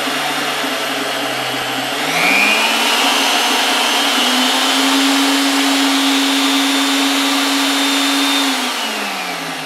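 AOCKE AX16RE magnetic drill press motor running free with no bit cutting: a steady whine that climbs to a higher speed about two seconds in, holds there loudly, then slows down near the end.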